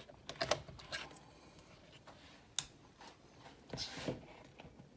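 Plastic sour cream tub being handled to get the sour cream out: a few sharp clicks and knocks of plastic, the sharpest about halfway through, and a short scrape near the end.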